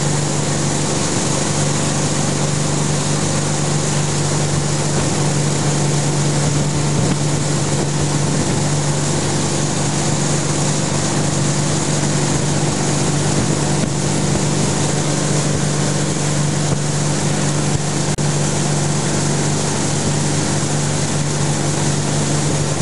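Tow boat's engine running at a steady pitch at full towing speed, with the hiss of wind and rushing water over it.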